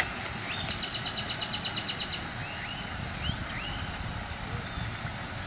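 A bird's rapid trill of about fifteen short high notes, followed by a few quick rising-and-falling chirps, over a steady low outdoor rumble.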